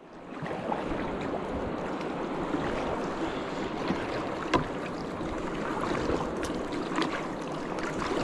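Flowing river water washing steadily around a kayak's hull, with a few light knocks, one about four and a half seconds in and another near seven seconds.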